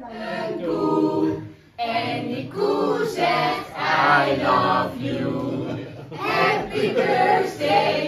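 A group of people singing a song together, phrase by phrase, with a short break about two seconds in.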